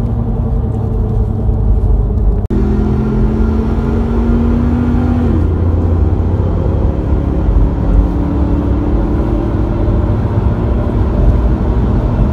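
Pickup truck engine and road noise heard inside the cab while driving: a steady loud low drone with an engine note. It breaks off for an instant about two and a half seconds in, and the engine note dips in pitch a few seconds later.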